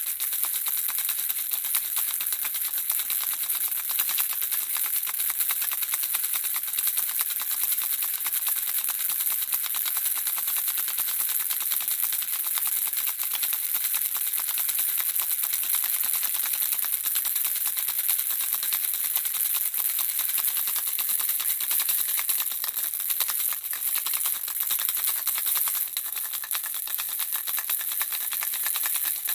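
Handheld baby rattle shaken steadily, the small objects inside making a dense, fast, high-pitched clatter of clicks without a break.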